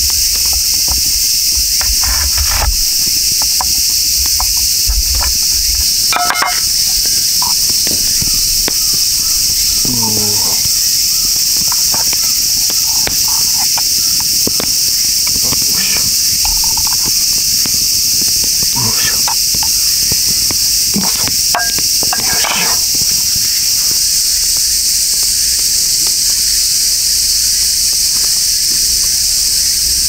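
A dense, steady chorus of summer cicadas, a loud high-pitched buzz that never lets up. A few light knocks and clicks come through under it.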